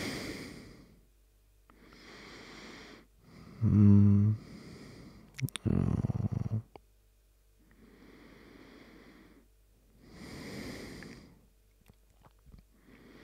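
A man breathing close to the microphone: a series of slow breaths with a short voiced sound about four seconds in and a few soft clicks near the end.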